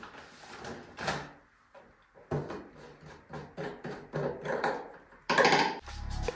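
Hand-soap dispenser being refilled: irregular light knocks and handling clicks of the bottles, with a louder knock about five seconds in.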